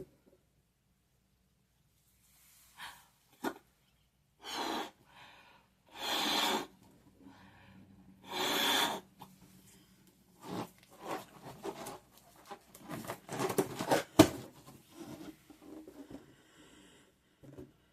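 A balloon being blown up by mouth: three long puffs of breath. These are followed by a string of small irregular rubs and clicks from the rubber being handled, with one sharp snap about two-thirds of the way through.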